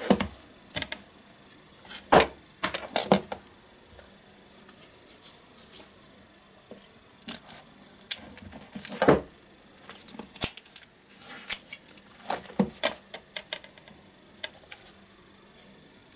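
A metal ruler's edge scraping and picking at the cellophane shrink-wrap of a plastic DVD case, trying to slit it open. It comes as irregular clicks, scratches and crinkles, with two sharper clicks about 2 and 9 seconds in.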